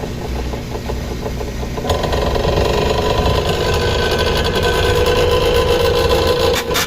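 Daewoo washing machine on its spin cycle, running with a rapid repeated knocking; about two seconds in it grows louder, with a steady whine over the rattle. The strange spin noise is one the uploader would trace to the motor or the drive belt.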